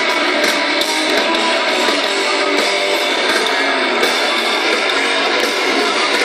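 Live rock band playing loud, with strummed electric guitars and drums, heard from within the crowd and thin in the bass.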